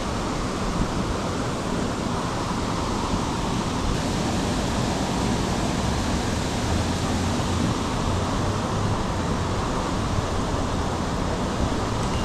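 Steady rushing of water pouring through a small dam's outlet, an even, unbroken roar.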